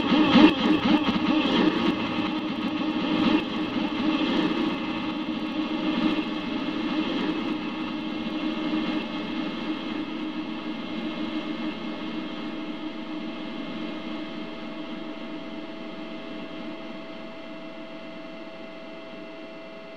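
A Yamaha PSR-E233 keyboard sound effect stacked on itself about ten million times, making a dense, distorted wash of many steady tones. The wash fades slowly throughout, leaving one steady tone standing out near the end.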